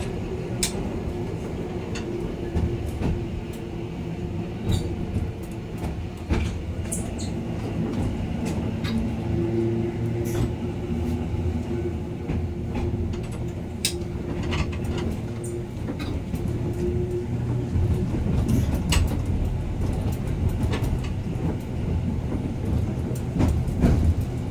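Randen electric tram running on its track, heard from inside the car: a steady low rumble with a motor hum that fades in and out. Scattered sharp clicks and knocks come as the wheels pass rail joints and points.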